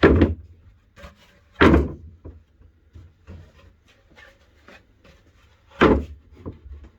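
Wooden shelf pieces being handled and set down, with three loud knocks and lighter clunks between.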